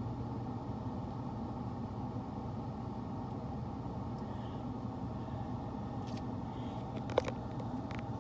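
Steady low motor drone, with a few light clicks and one sharper tap about seven seconds in.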